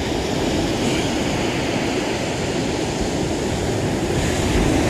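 Fishing reel on a beach-casting rod being wound steadily to take up slack and tighten the line to the lead, giving a continuous mechanical rumble that starts as the winding begins.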